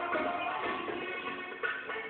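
Music playing: a melody of held, changing notes over light percussion strikes.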